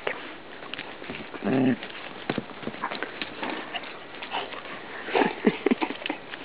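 A dog's paws crunching and pattering on snow-covered grass, with snuffling and short crackly clicks. About a second and a half in there is a brief low voice-like sound, and a few more short low sounds come near the end.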